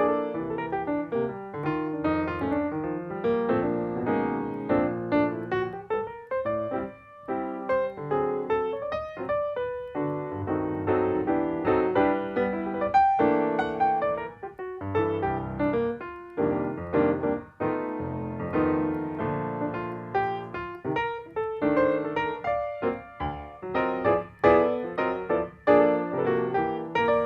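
Background piano music: a steady run of struck piano notes and chords.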